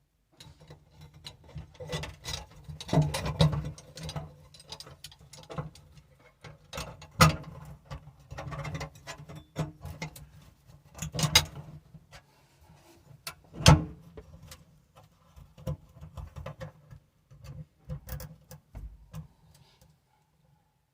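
Irregular metal clicks, clinks and knocks as the parts of a garbage disposal's sink-mount assembly are handled and fitted under the sink, with a few sharper knocks along the way.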